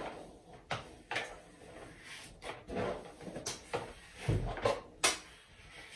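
A hairbrush swept through long straight wig hair: irregular short brushing scrapes and light knocks of handling, with a low thump a little past four seconds and the loudest stroke about five seconds in.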